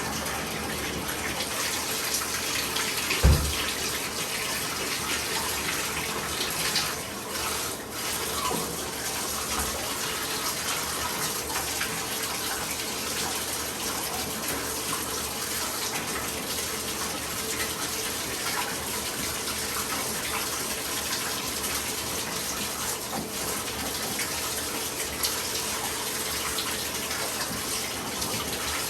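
Water running steadily from a bathtub tap, an even rush throughout, with one sharp thump about three seconds in.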